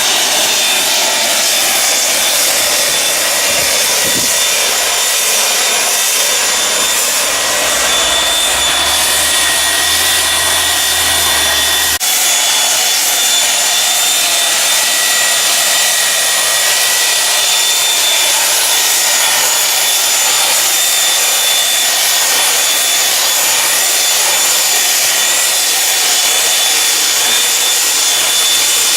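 Power sander running on a wooden slab, a steady rough sanding noise with a high motor whine over it.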